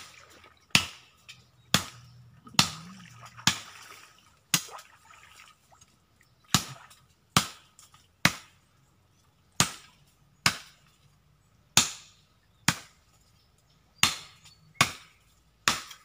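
Machete chopping wood, a steady run of sharp blows about one a second, some sixteen in all, with a short pause about a third of the way through.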